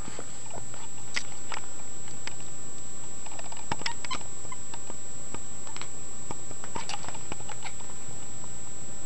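Cat chattering at a flying bug: short, dry clicks in small scattered groups, the prey-watching chatter a cat makes instead of meowing.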